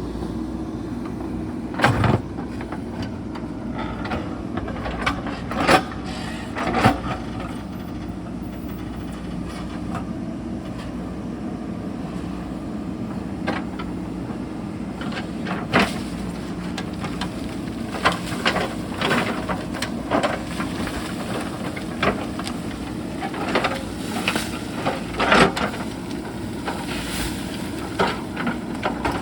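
JCB backhoe loader's diesel engine running steadily under load, with repeated sharp knocks and scrapes as the bucket strikes and drags rocks and stones.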